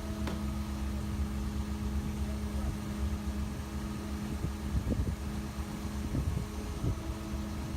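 A steady low mechanical hum with a constant drone, and a few faint knocks.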